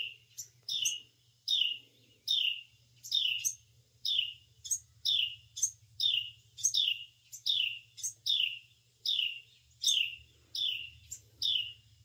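Adult wren calling over and over, a sharp downward-sweeping chirp about twice a second: the mother's alarm at a person close to her nest and fledglings.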